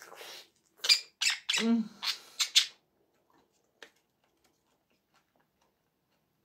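Budgerigar giving a quick run of short, harsh squawks over about two seconds, with a brief low human murmur among them.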